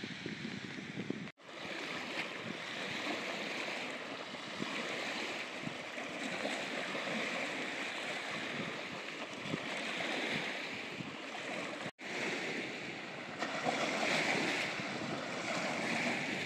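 Small waves lapping at a reservoir shore, with wind rushing over the microphone; the steady sound drops out twice for an instant.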